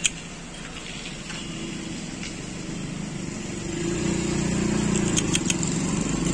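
Road traffic: a motor vehicle's engine running, getting louder about four seconds in, with a few light clicks near the end.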